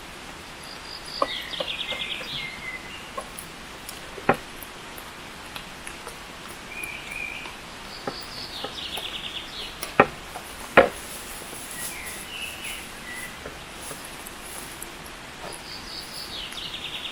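A songbird repeating the same short trilled phrase three times, about seven seconds apart. Three sharp knocks, the loudest sounds, come about four, ten and eleven seconds in.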